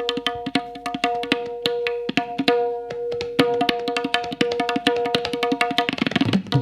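Tabla played in rapid strokes for a sound test, the tuned right-hand drum ringing at one steady pitch under the strikes. Near the end, deep booming strokes from the left-hand bass drum come in.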